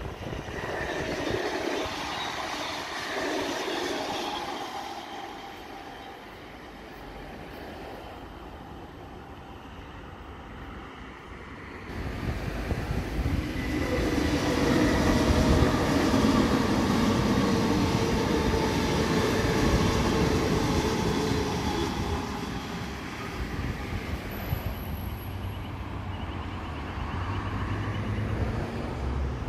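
Electric suburban trains on the line: several steady motor tones over a rumble of wheels on rail. The sound fades after about five seconds and swells again, loudest from about twelve seconds in.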